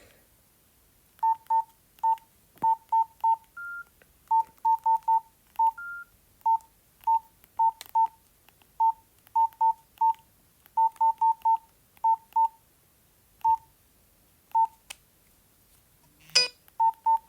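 Nokia 113 keypad tones: a run of short single beeps, one per button press as the menus are worked, irregularly spaced at up to about three a second. Two slightly longer, higher beeps come about four and six seconds in, and a short scraping noise comes near the end.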